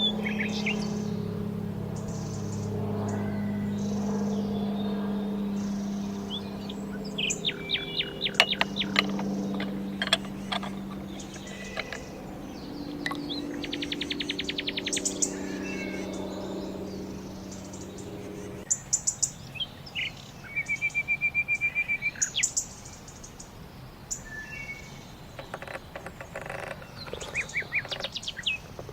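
Several songbirds chirping and trilling in a garden, with short calls and quick trills throughout. A low steady hum runs under them and stops suddenly about two-thirds of the way through.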